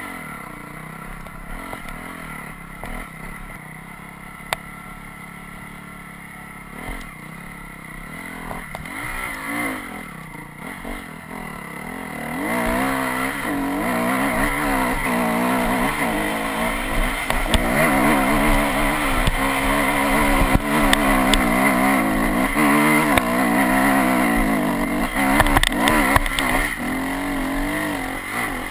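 Dirt bike engine running at moderate revs, then from about twelve seconds in louder and revving hard with the pitch rising and falling as it climbs a steep, rutted hill under load. The engine note eases off briefly near the end.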